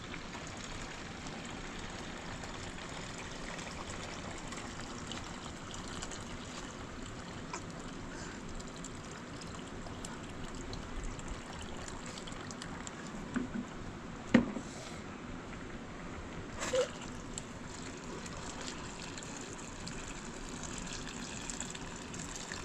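Steady trickle of running water. A few short knocks sound about thirteen to seventeen seconds in.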